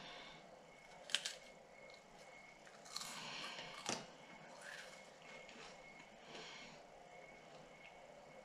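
Faint chewing of a cracker topped with tuna salad, with a sharp crunch about a second in and another just before four seconds.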